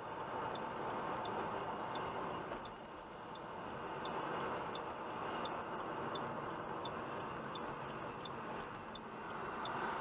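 Car's turn-signal indicator clicking about every 0.7 seconds as the car turns off the highway, over steady road and engine noise heard from inside the cabin.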